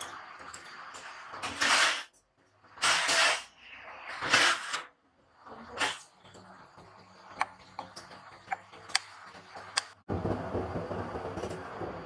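Small steel latch parts hung on wire are worked in a steaming chemical dipping tank. There are several short swishes, a few light metallic clicks, and then, about ten seconds in, a steady hiss and bubbling from the hot bath.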